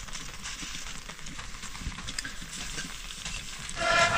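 A pot of noodle soup cooking over a fire gives a steady sizzling hiss with faint crackles. A voice starts near the end.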